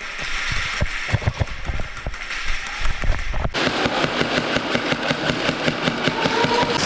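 Airsoft gunfire: scattered single shots, then about three and a half seconds in, sustained rapid fire starts suddenly and keeps going.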